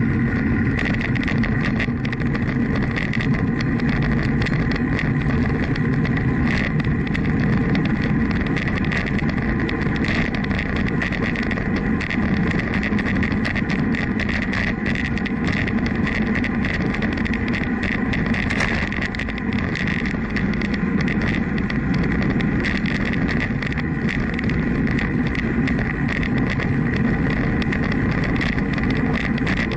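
Steady wind noise buffeting the microphone of a moving action camera, a constant low rumble with a faint steady whine above it.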